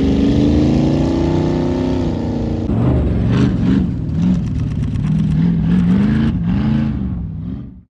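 Ultra4 off-road race car engine revving and accelerating away, its pitch climbing over the first two seconds, then rising and falling as the throttle changes. The sound fades out abruptly at the very end.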